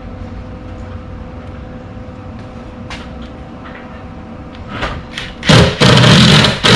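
Power drill driving a screw: a loud, harsh burst of about a second near the end, followed by a second short burst, over faint background noise and a few light clicks.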